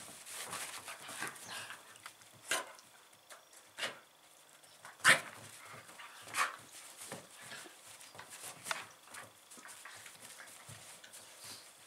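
Two small dogs play-fighting, giving several short barks, the loudest about five seconds in.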